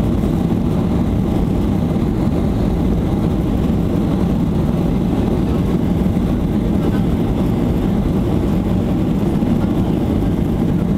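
Boeing 737-800's CFM56-7B turbofan engines at take-off thrust, heard from inside the cabin over the wing, with the wheels rolling fast on the runway during the take-off roll. A steady, deep, even noise that neither rises nor falls.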